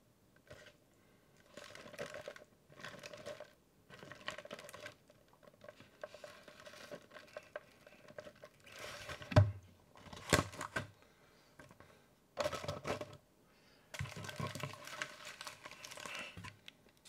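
Close-miked eating of cheese-loaded nachos: tortilla chips crunching, wet chewing, and a plastic fork working through the chips in a foam takeout box, with a couple of sharper crunches or clicks about halfway. Near the end the burrito's paper wrapper crinkles.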